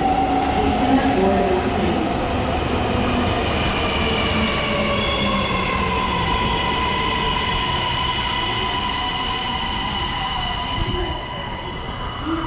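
Kintetsu 80000 series 'Hinotori' limited express pulling into an underground platform and slowing: wheels and running gear rumble, a motor whine falls gently in pitch as it decelerates, and a high steady squeal sits over it.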